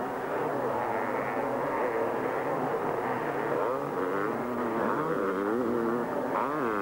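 Two 500cc two-stroke motocross bikes racing close together. The engine pitch rises and falls again and again as the riders open and close the throttle.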